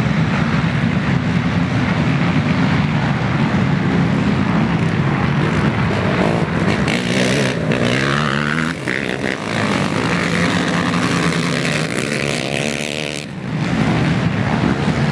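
Several racing ATV engines running hard. From about seven seconds in, their pitch rises and falls as a pack of quads revs and shifts while passing close by. A short dip near the end, then the engine noise comes back.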